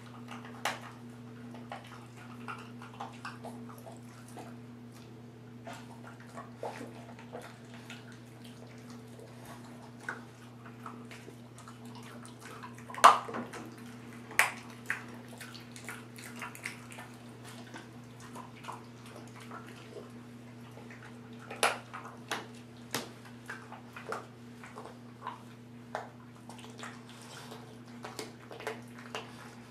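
Bullmastiff puppy chewing a frozen chicken wing, crunching the bones: irregular wet crunches and clicks with a few sharper cracks, over a steady low hum.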